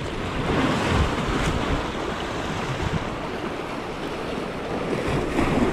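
Sea waves washing, with wind buffeting the microphone in low, uneven gusts.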